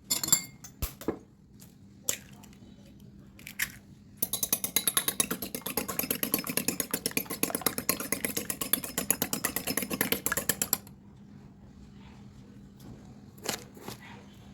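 Pancake batter being beaten in a bowl with a utensil: a fast, even run of clicking strokes lasting about six seconds. A few separate knocks come before and after it.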